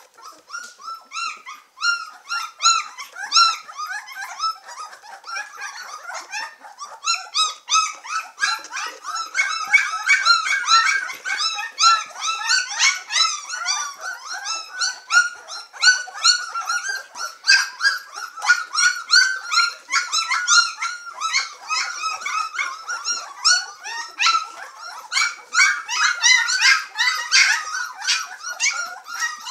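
A litter of two-week-old White Swiss Shepherd puppies squealing and whining all at once as they crowd to nurse from their mother. It is many short, high-pitched cries overlapping, growing busier about eight seconds in.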